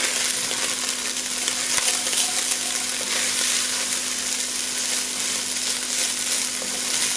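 Ground turkey and green onions sizzling in a frying pan while being stirred, a steady frying hiss with a faint low hum underneath.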